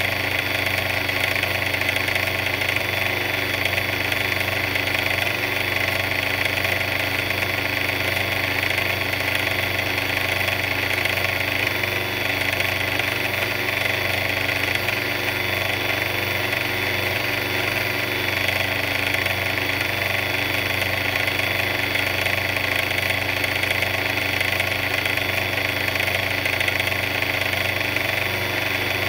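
A big yellow mixer's motor running steadily at an even speed, with no change in pitch or level.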